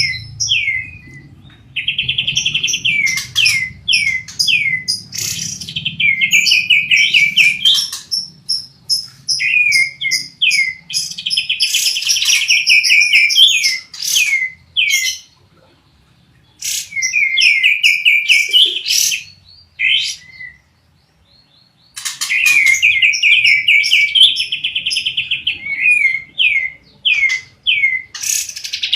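Caged songbirds, a canary and a kapas tembak bulbul, singing in bursts of fast rolling trills and sharp chirps, broken by short pauses.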